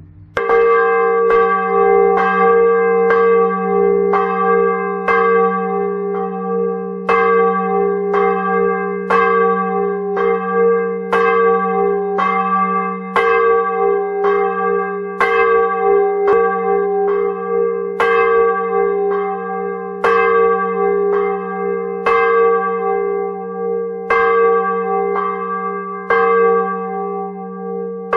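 Large cast-steel church bell swung by its electric ringing drive, the clapper striking about once a second with each stroke ringing on over a steady hum. This is the bell rung for Mass, and its first stroke comes about half a second in.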